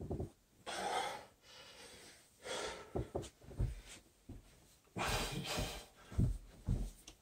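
A man breathing heavily from exertion, several loud breaths a second or so long, with a few soft, dull thumps of bare feet landing on carpet as he works in and out of a plank.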